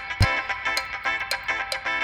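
Background music: a light, bouncy tune of short repeated notes over a regular beat.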